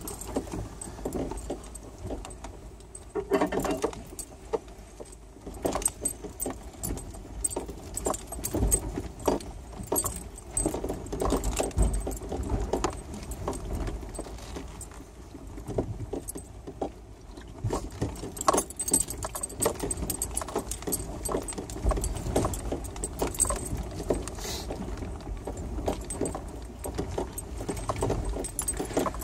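Irregular rattling, clinking and knocking inside an off-road vehicle's cab as it jolts over a rocky, rutted dirt trail, over a low rumble of engine and tyres.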